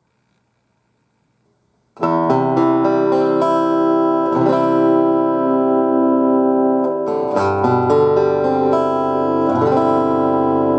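Guitar played through a Roland BA-330 portable amplifier: after a short silence, strummed chords start about two seconds in and ring on, with new chords struck three more times.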